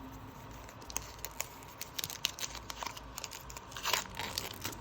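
Foil trading-card booster pack wrapper crinkling and being torn open: a run of sharp crackles, with a longer rip near the end.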